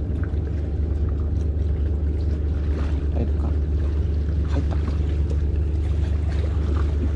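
Seawater lapping and sloshing among concrete tetrapods, with small splashes, over a steady low rumble.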